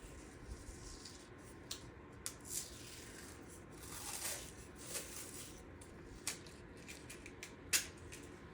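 Painter's tape being pulled and torn and pressed onto a plastic grocery bag, the plastic crinkling. It comes as scattered short rustles and sharp crackles, the sharpest near the end.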